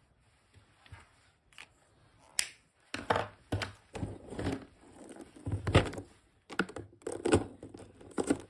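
Plastic-barrelled alcohol markers knocking against each other and their plastic case as a hand rummages through them: a few light clicks, then from about three seconds in a busy run of irregular clacks and rattles.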